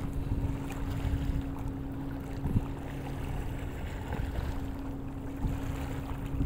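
Steady low motor hum, with wind rumbling on the microphone.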